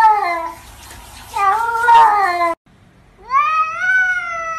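Domestic cats meowing: three long, wavering meows. The second cuts off abruptly about two and a half seconds in, and a higher meow from a tabby cat follows.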